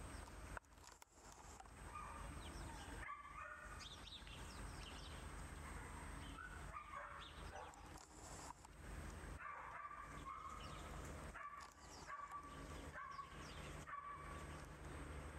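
Rough collie puppies yipping faintly in play: scattered short, high yips, coming more often in the second half.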